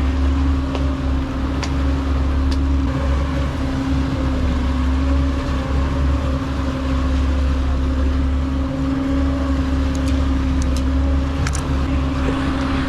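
Boat engine running steadily under way, a constant low drone with a steady hum.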